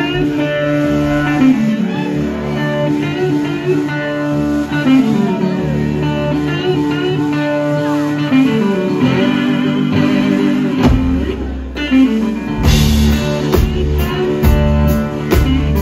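Live blues-rock band: an electric guitar plays a solo intro of single notes, some wavering or bent. Bass notes come in about eleven seconds in, and drums join about two seconds later with a steady beat.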